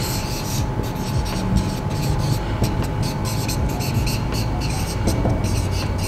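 Marker pen writing on a whiteboard: a quick run of short, irregular rubbing strokes as the equation is written out, over a faint steady hum.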